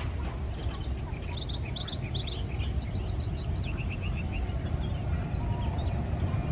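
Twin-engine jet airliner on its takeoff roll, engines at takeoff power, a low rumble growing slightly louder as it approaches. Small birds chirp over it in quick runs of short notes near the middle.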